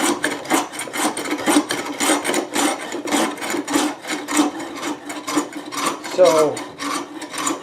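Toothing plane rasping across a marquetry panel set in mahogany, in quick repeated strokes, scraping off hardened hide glue and flattening the surface.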